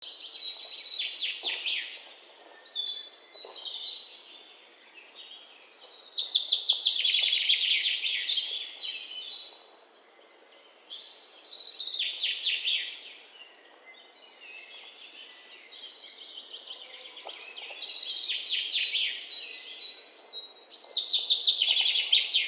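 Songbirds singing: phrases of rapid, high chirping trills that come and go every few seconds.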